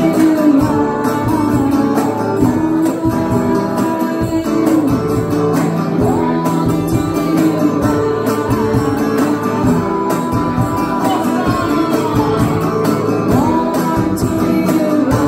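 Live band playing: a woman singing over electric guitar and hand percussion.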